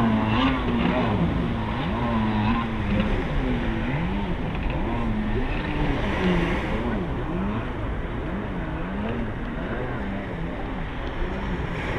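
Jet ski engine, which the onlooker takes for a two-stroke, revving up and down as the rider carves turns, its pitch rising and falling roughly once a second.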